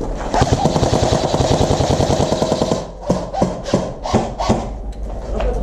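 An airsoft electric rifle fires a long rapid full-auto burst for about two and a half seconds, then a string of separate shots, about three a second.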